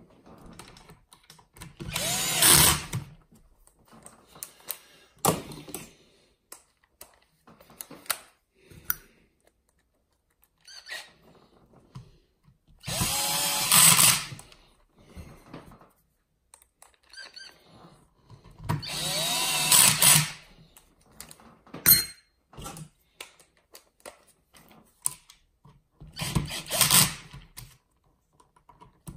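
Handheld power screwdriver whirring in four short runs, each a second or so long and rising in pitch as it spins up, driving screws. Small clicks and taps of parts and tools come between the runs.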